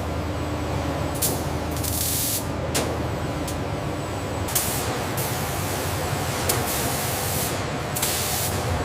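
Factory-floor noise: a steady low hum with short bursts of hissing air every second or two and a few sharp clicks.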